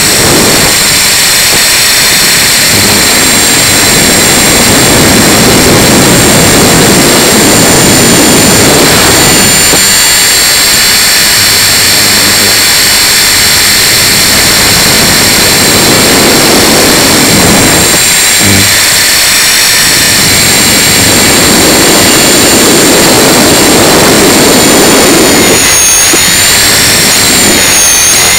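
Tarot 450 Pro electric RC helicopter in flight: the steady high whine of its motor and drivetrain over rotor noise. Gusts swell and fade every few seconds in strong wind, and the whine wavers briefly near the end.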